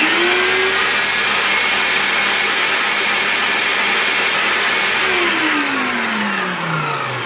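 Black & Decker 7¼-inch circular saw with a 12 amp motor running free with no load: it spins up quickly with a rising whine, runs steady for about five seconds, then winds down with a falling whine once the trigger is released.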